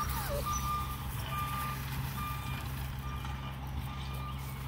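Vehicle reversing alarm beeping steadily, about five short single-pitch beeps a little under a second apart, over a low steady hum.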